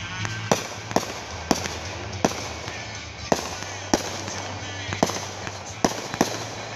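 Repeating firework cake firing from the ground: a string of sharp bangs, about one to two a second, unevenly spaced.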